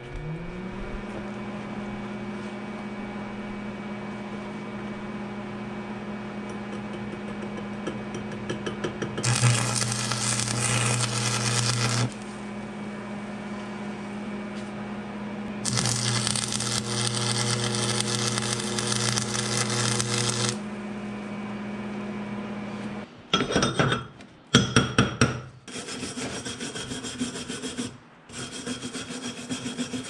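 An old arc welder is switched on, its hum rising briefly and then holding steady. Two runs of stick welding with 7014 electrodes follow, each a steady arc crackle with a low buzz under it, one about three seconds long and one about five. Near the end come irregular scraping and rasping bursts as the slag is knocked and scraped off the fresh welds.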